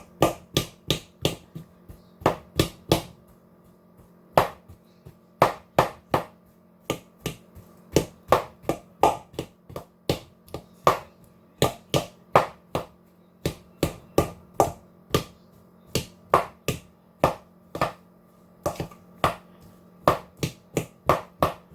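A long series of sharp clicks or knocks, about two to three a second with a few short pauses, over a faint steady hum.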